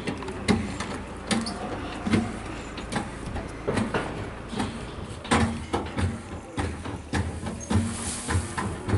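Manual hydraulic tipping pump on a paddock vacuum's tipping box, worked by hand with its lever: a run of metallic clunks about once a second as the tub is raised to dump its load.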